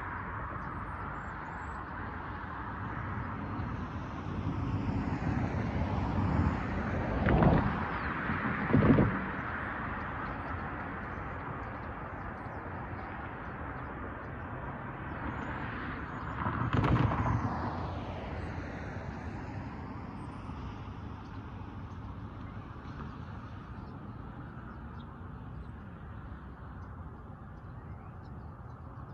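Road traffic: cars passing one at a time over a steady background of distant traffic, the loudest passes about seven and a half, nine and seventeen seconds in. The background slowly fades toward the end.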